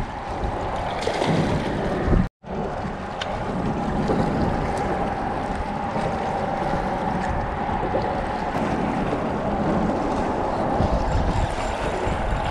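Steady wind buffeting the microphone over small waves lapping against shoreline rocks. The sound cuts out for an instant about two seconds in.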